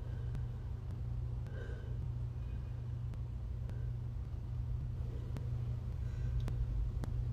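A steady low rumble, with a few faint, brief sounds above it and no sneeze.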